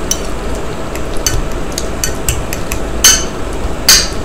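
A metal fork clinking against a bowl in irregular taps while mashing ripe banana into a paste, with two louder clinks near the end. A steady low hum runs underneath.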